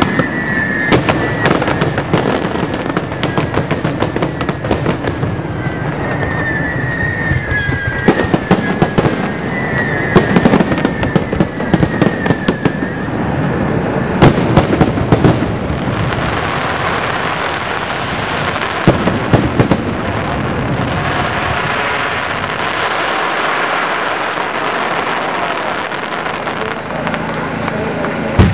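Aerial fireworks display: a rapid string of bangs, with whistling shells that fall slightly in pitch through roughly the first half. After that it turns to dense crackling with scattered louder reports.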